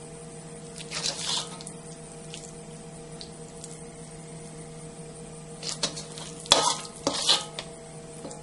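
Metal spoon scraping and clinking against a metal pan and a glass bowl while scooping thick pumpkin halwa: a short scrape about a second in, then a louder cluster of scrapes and clinks between about six and seven and a half seconds in.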